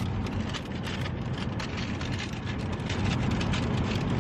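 Road noise inside a moving car: a steady low rumble with many irregular, fast clicks over it.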